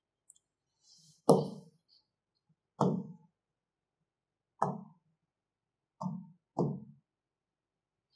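Five dull knocks, spaced a second or two apart, with the last two close together.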